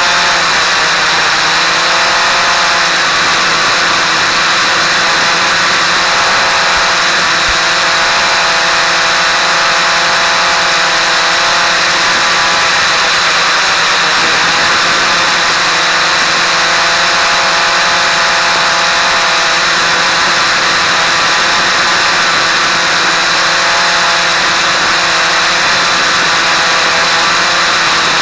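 Quadcopter's electric motors and propellers whirring steadily in flight, their pitch drifting slowly up and down as the throttle changes, over a constant thin high whine.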